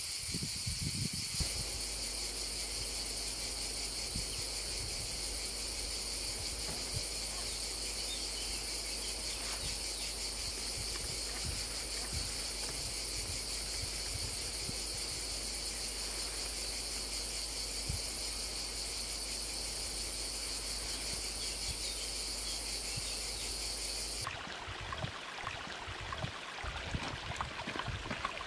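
Steady high-pitched outdoor ambient hiss with a low hum underneath. About 24 seconds in it changes abruptly to a rougher, fuller rushing noise.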